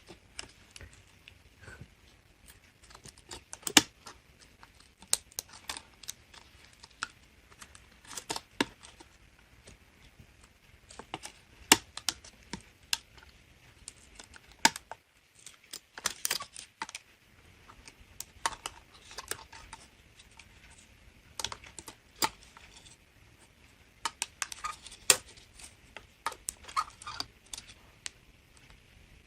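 Irregular small clicks, taps and rustles of laptop parts being handled: the old hard drive is being freed from its mounting bracket and the cushioning pad is being pulled off. There are scattered sharp clicks, with a short rustle about halfway through and a cluster near the end.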